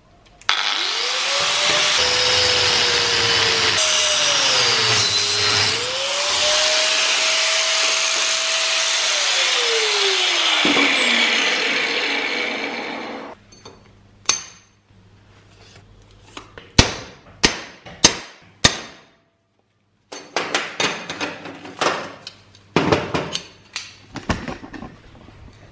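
Angle grinder spinning up and cutting through steel threaded rod held in a vise, its motor note dropping under load, then winding down and stopping about halfway through. After it stops come a string of sharp clanks and knocks.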